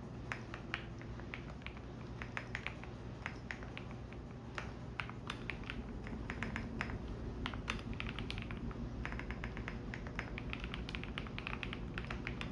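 Typing on a computer keyboard: irregular runs of key clicks with short pauses, over the steady low hum of a washing machine running.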